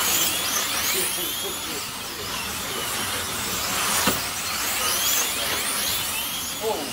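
Slot cars' small electric motors whining as they lap the track, the pitch rising and falling again and again as cars speed up and slow for the corners, over a steady hiss. A sharp click sounds about four seconds in.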